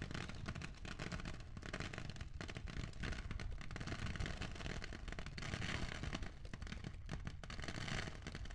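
Foley rain made from rice: a dense, steady patter of tiny grain impacts, edited to sound like falling rain. A faint steady hum runs underneath.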